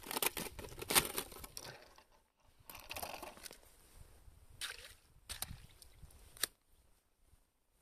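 Slotted ice skimmer scooping slush and water out of an ice-fishing hole: irregular sloshing scoops and scrapes, with a few sharp knocks, the loudest about a second in.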